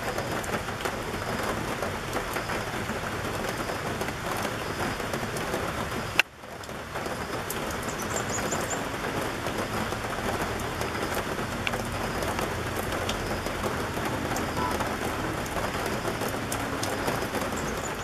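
Steady rain falling: a dense hiss full of small drop ticks. A sharp click with a brief break in the sound comes about six seconds in.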